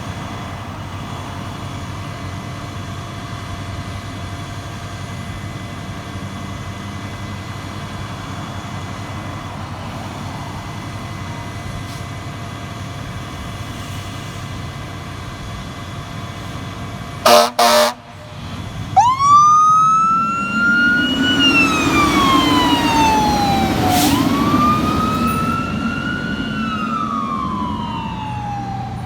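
Fire engine idling steadily, then two short air-horn blasts about two-thirds of the way in. Its siren follows, winding up and wailing down twice as the engine responds to a call.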